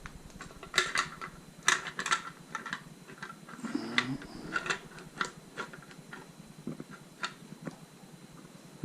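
Irregular clicks and knocks of a 7-inch LED headlight being worked into its mounting bracket while it is lined up, the sharpest few in the first two seconds.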